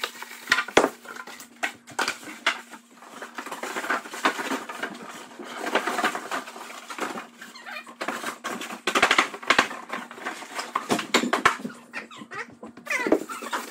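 Styrofoam packing pieces and plastic wrapping being handled: irregular knocks, squeaks and rustling, with a faint steady hum underneath.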